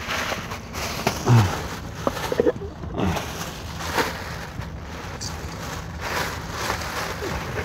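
Thin plastic shopping bag rustling and crinkling as it is handled and opened, with a brief voiced murmur about a second in.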